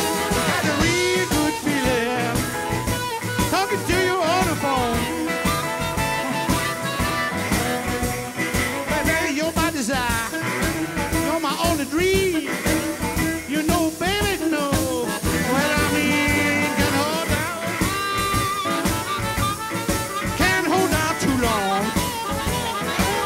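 Blues song playing on the soundtrack: a band with bending, sliding melody lines over a steady accompaniment, in a stretch where no lyrics come through.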